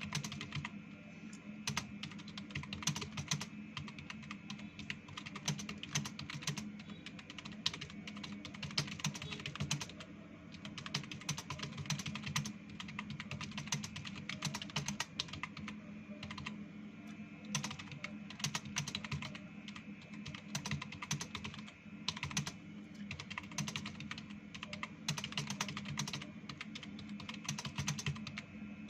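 Fast continuous typing on a computer keyboard during a timed typing-speed test: a dense run of key clicks, with a couple of brief pauses, over a steady low hum.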